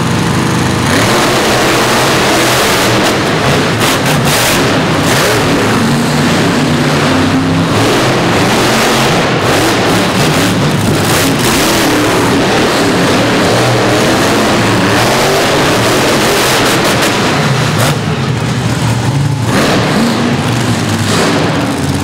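Monster truck engines racing: they go from a steady idle to full throttle about a second in and run hard, the pitch rising and falling as they rev. They ease off briefly near the end.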